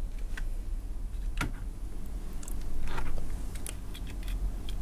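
Scattered small plastic clicks and rubbing as fingers flex and push the body shell of a Kato N gauge 0 Series Shinkansen motor car up off its frame, unhooking it from its locking pins, with a slightly louder burst of handling noise around the middle.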